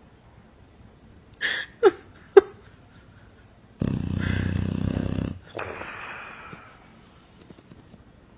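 Loud, odd snoring from a sleeper: a few short squeaky snorts with falling pitch, then one long, harsh, rasping snore, then a softer breathy one that fades away.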